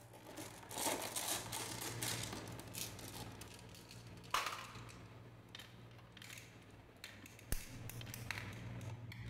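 Marbles clicking and clattering against one another as they are handled and set down in a row on a wooden track, with a sharper single click about halfway through and another near the end. A low steady hum runs underneath.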